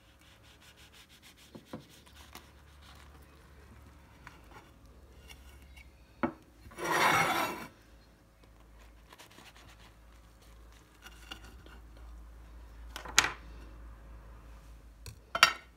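Small kitchen knife sawing through the baked crust of a stuffed bun on a plate: faint rubbing strokes, one loud rasp about seven seconds in, and a few sharp clicks later on.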